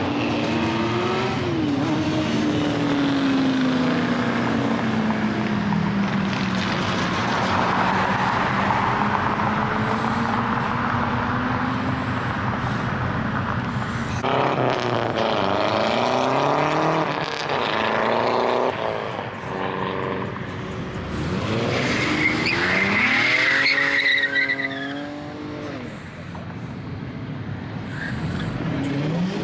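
Cars accelerating hard as they leave a street car meet, engines revving up and dropping in pitch again and again through gear changes, with a high tire squeal a little over two-thirds through.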